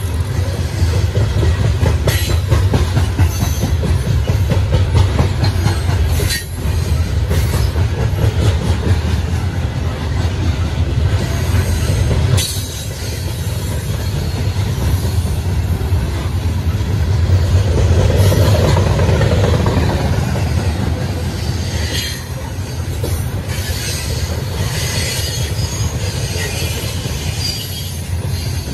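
Norfolk Southern freight train cars rolling past close by: a steady heavy rumble with the clatter of wheels over the rail running throughout.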